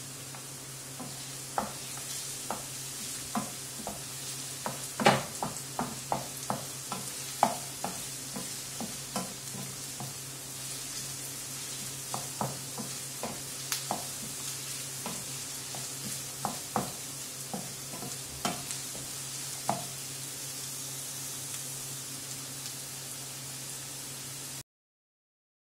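Chopped onion and carrot sizzling in olive oil in a frying pan as they sauté towards caramelizing. A wooden spoon stirs them, knocking and scraping against the pan in quick irregular taps for about the first twenty seconds. The sound cuts out briefly near the end.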